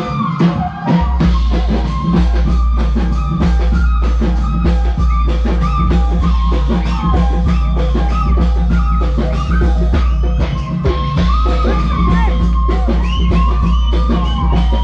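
Live band music, loud and rhythmic: steady drum beats with a gliding high melody line over them, and a heavy bass that comes in about a second in.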